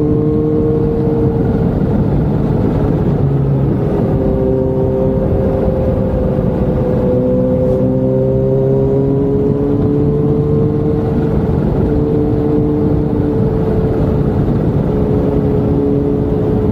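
Sports motorcycle engine running at a steady cruise, its hum rising and falling slightly in pitch, over heavy wind rumble on the camera microphone.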